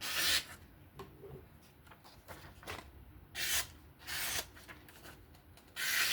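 A sharpened knife edge slicing through a sheet of paper in four short, hissy cuts, one at the start, two close together in the middle and one near the end, as a test of edge sharpness.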